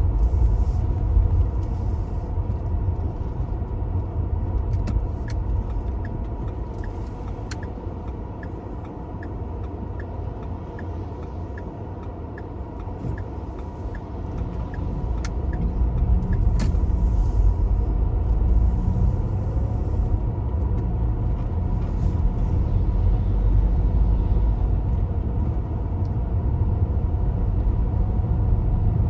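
Car driving on wet roads: steady engine and road rumble, quieter for a few seconds in the middle, then louder again from about halfway as the car picks up speed. A light, regular ticking runs through the quieter stretch.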